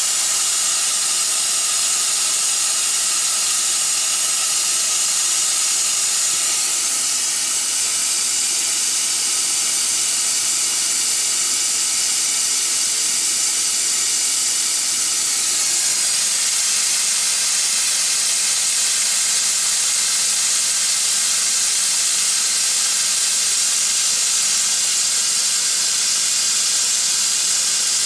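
Steady hiss of carbon dioxide and foam forcing out from under the partly lifted crown cap of a gushing homebrew milk stout bottle. The beer is badly over-carbonated, which the brewer suspects is caused by an infection.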